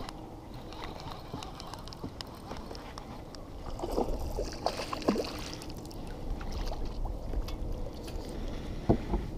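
Kayak being paddled: steady low water noise around the hull with soft sloshing, and a few light clicks and knocks scattered through it.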